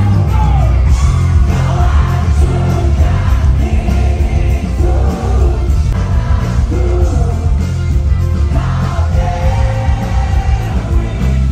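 A rock band playing live with a singer over heavy bass and drums.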